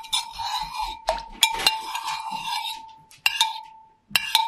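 Metal spoon stirring thick, freshly set yogurt in a slow cooker's stoneware crock: a wet scraping, with sharp clinks against the side that each leave a short ring. Two quick pairs of clinks come near the end.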